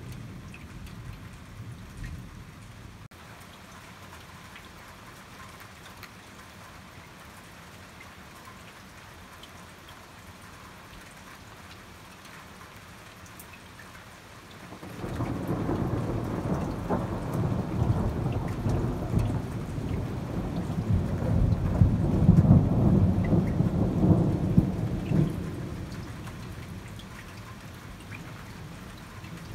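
Steady rain falling during a thunderstorm. About halfway through, a long roll of thunder begins, builds to its loudest over several seconds, then dies away after about ten seconds.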